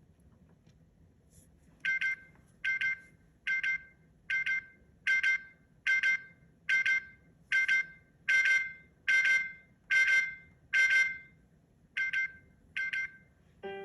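Google Pixel phone alarm tone: a short electronic double beep, repeated a little more than once a second and fourteen times in all. It starts about two seconds in and grows slightly louder toward the middle.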